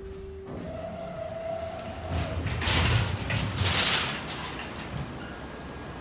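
Schindler 330A elevator doors sliding open, a loud rushing rumble lasting about two seconds. It is preceded by a steady tone that steps up in pitch about half a second in.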